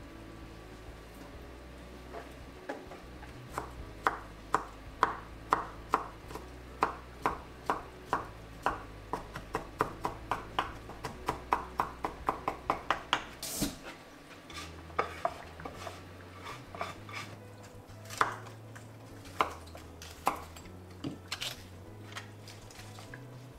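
Kitchen knife chopping on a wooden cutting board in an even rhythm that quickens to about four strokes a second. About halfway through there is a short burst of noise, followed by a few slower, scattered cuts.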